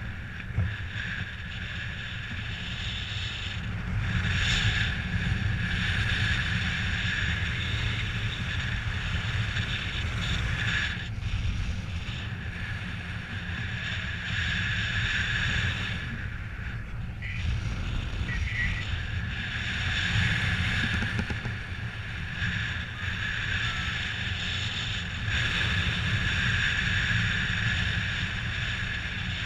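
Wind rushing over the camera microphone of a paraglider in flight: a steady low rumble with a steady high whistle above it, easing briefly now and then.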